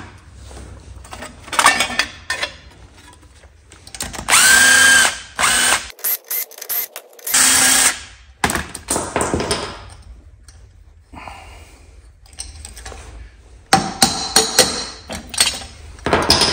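Cordless drill with a socket spinning out the cylinder-head bolts of a 22 hp Briggs & Stratton twin-cylinder engine. It runs in several bursts, one or two seconds each, rising in pitch as it speeds up, with clicks and clatter of bolts and tools between.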